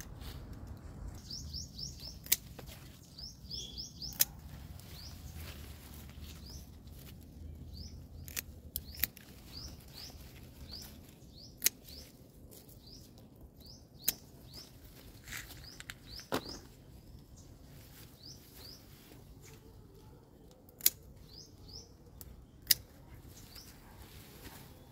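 Hand pruning shears snipping okra pods off the plant, about nine sharp clicks spaced unevenly. A small bird chirps over and over with short rising notes.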